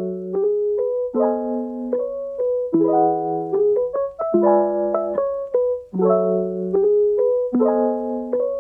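Background music: a keyboard plays sustained chords under a melody, with the chord changing about every one and a half seconds.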